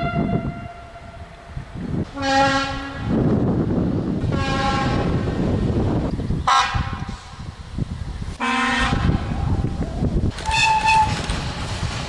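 Train horns: one blast ends about a second in, then five separate blasts of about a second each follow at different pitches, some low and some high. Under them runs the rumble of trains on the track.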